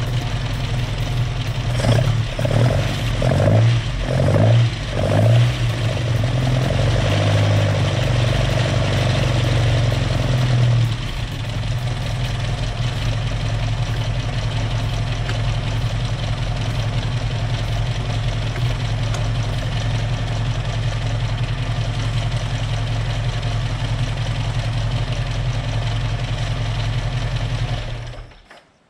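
Alfa Romeo Giulia's Nord twin-cam four-cylinder engine running: revved a few times in the first seconds, then settling to a steady idle that stops abruptly near the end.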